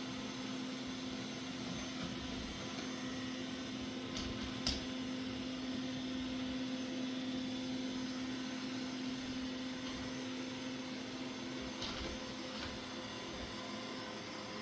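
Mova Z60 robot vacuum running, a steady hum with a constant low tone, with a couple of light clicks about a third of the way in and another near the end.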